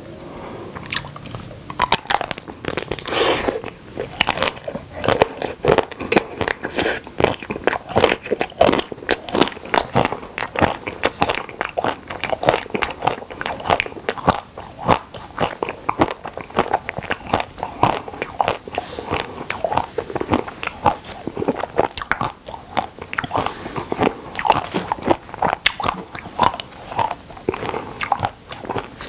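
Close-miked biting and chewing of a frozen Okdongja milk caramel ice cream bar: a dense, irregular run of crunches and crackles as the hard frozen bar is bitten and chewed.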